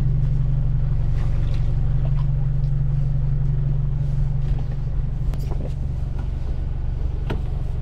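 A vehicle engine running steadily, heard as a low drone, with a few light clicks near the end.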